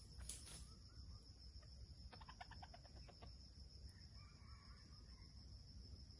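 Red junglefowl clucking faintly: a quick run of about eight short clucks about two seconds in, then a few softer notes a little later.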